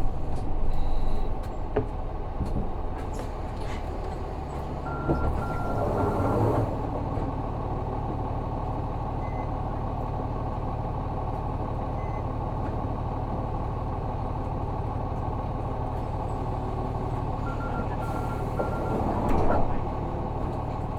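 Isuzu Erga bus's 6HK1 inline-six diesel running steadily at an even engine speed, heard from inside the cabin. Twice, a short series of quick high electronic beeps sounds together with a brief burst of hiss.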